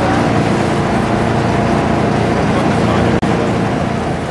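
Boat engine running steadily under way, with a brief dropout about three seconds in.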